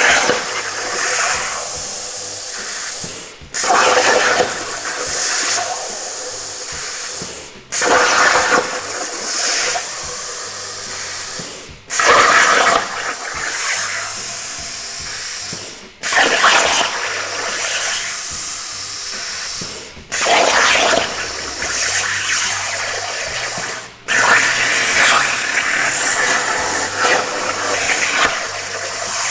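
CNC plasma torch cutting metal plate: a loud, steady hiss of the arc and air that starts each cut with a louder burst and cuts out briefly about every four seconds as the torch finishes one cut and pierces for the next.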